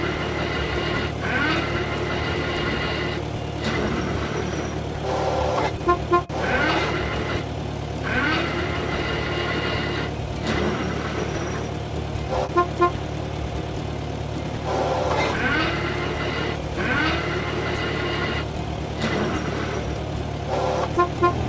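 Cartoon vehicle sound effects: a steady engine hum with short double horn toots, heard three times, under a repeating jingle.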